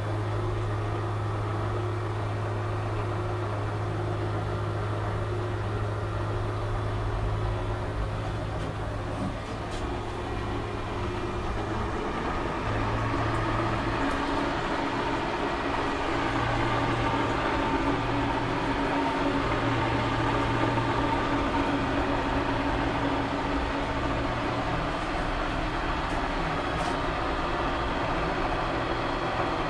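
Archdale 20-inch horizontal milling machine running under power on a test run of its just-rebuilt gearbox, freshly filled with ISO 32 hydraulic oil. The electric motor drives it through V-belts, and it runs steadily with a low hum and a mechanical whirr that grows a little louder about midway.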